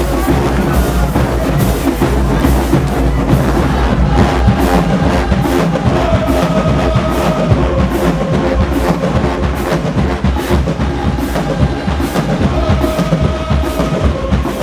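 Marching band playing loudly: brass holding long notes over a steady drum beat.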